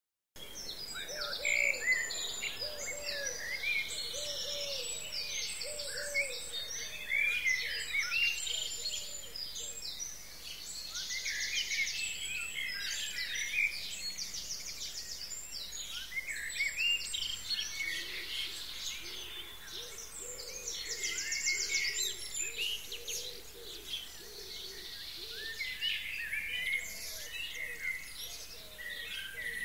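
Several songbirds singing at once, a busy mix of high chirps and trills. Under them a lower call repeats about once a second for the first several seconds and again in the second half.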